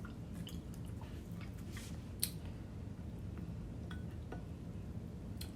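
Light clicks and clinks of eating and handling food and utensils, over a steady low room hum, with one sharper click about two seconds in.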